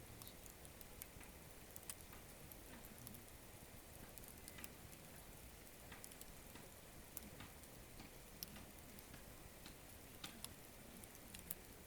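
Small wood campfire crackling faintly: scattered, irregular sharp pops and ticks over a low steady hiss.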